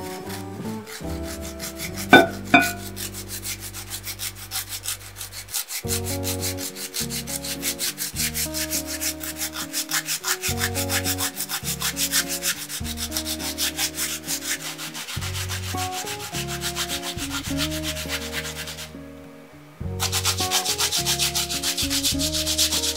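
Daikon radish being grated by hand on a plastic grater: rapid, even rasping strokes, several a second, with a couple of sharp knocks about two seconds in. The grating stops for about a second near the end and then resumes, louder.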